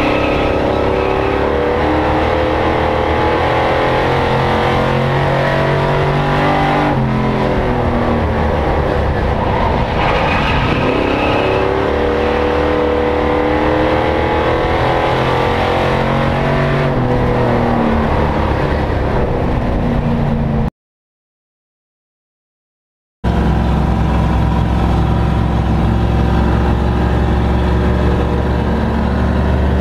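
Short-track race truck engine heard from inside the cab at racing speed, its pitch falling as it lifts off and rising again as it accelerates, lap after lap. About two-thirds of the way in, the sound cuts out completely for about two and a half seconds, then returns.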